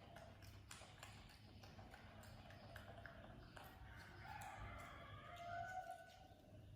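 Quiet background with scattered light taps, and a faint drawn-out call about four seconds in, lasting about two seconds.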